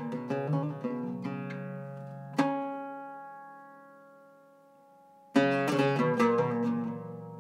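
Iraqi-style Zeryab oud with a cedar top, played with a pick: a run of quick plucked notes, then one strong pluck about two and a half seconds in that is left to ring and die away. Fast playing starts again sharply about five seconds in.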